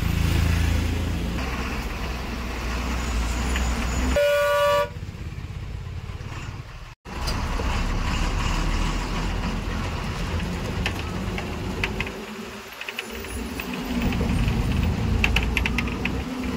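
Engine and road noise of a moving bus heard from inside, a steady low rumble, with one short vehicle horn toot about four seconds in. The sound drops out for an instant at about seven seconds, then the rumble carries on.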